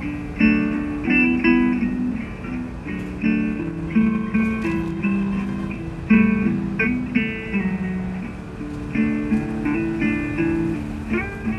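Background music led by guitar, a plucked melody of short notes that runs on without a break.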